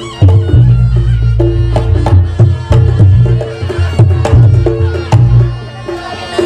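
Reog Ponorogo gamelan accompaniment playing loudly: drum strokes and gongs under a fast, even run of short repeated metallic notes.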